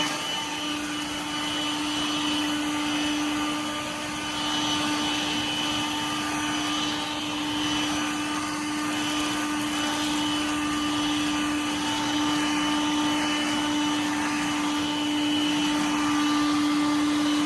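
Dirt Devil Vibe 3-in-1 corded bagless stick vacuum running steadily, its motor giving a constant hum with a higher whine above it.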